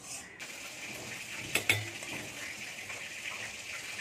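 Steady hiss with two sharp clinks of steel utensils about a second and a half in.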